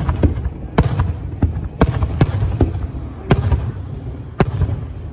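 Aerial firework shells bursting: a run of sharp bangs, the loudest about once a second, with smaller pops between and a low rumble underneath.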